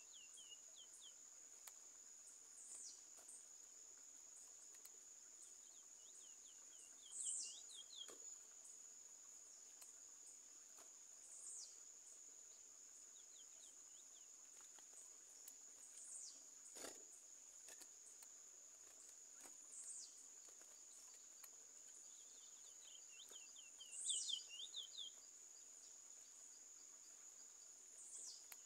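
A small songbird sings short phrases every four or five seconds, each a quick falling note followed by a string of short falling notes, over a steady high-pitched insect buzz.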